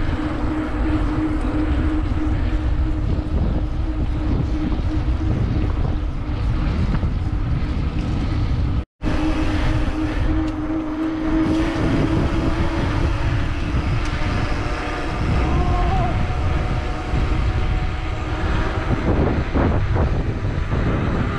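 Wind rushing over an action camera's microphone while riding a mountain bike along a paved path, with the tyres rumbling and a steady hum underneath. The sound drops out for an instant about nine seconds in.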